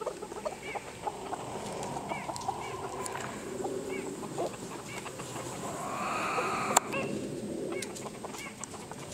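A flock of chickens clucking and murmuring softly as they settle to roost, with many short calls over a low continuous murmur. A louder drawn-out call comes about six seconds in, followed by a sharp click.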